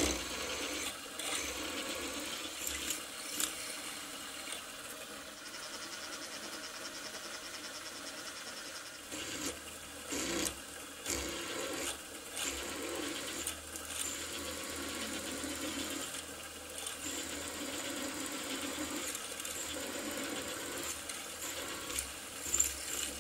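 Vertical milling machine spindle running while a twist drill bores clearance holes through two clamped flat bars, with a steady machine hum and intermittent short ticks and scrapes from the cut and its chips.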